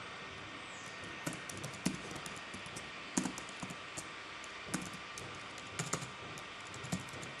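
Typing on a computer keyboard: single keystrokes at uneven intervals over a faint steady hiss.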